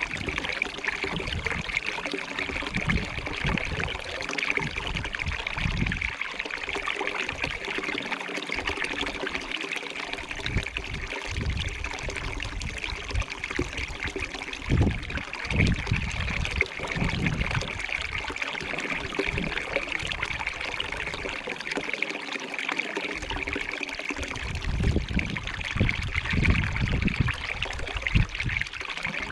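A small stream running and trickling steadily, with irregular low rumbles coming and going underneath.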